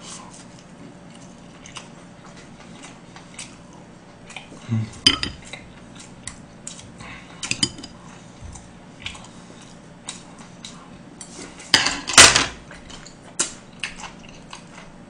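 Metal spoon and chopsticks clinking against a soup bowl and plates while eating, in scattered short clicks with quieter eating sounds between; the loudest burst comes about twelve seconds in.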